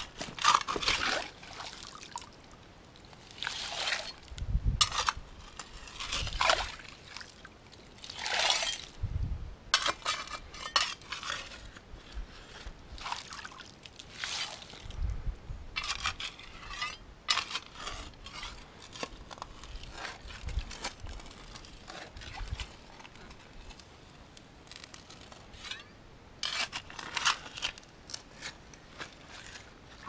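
Shallow creek water splashing and sloshing in irregular bursts every second or two, some with a dull low thump beneath, over a steady faint trickle.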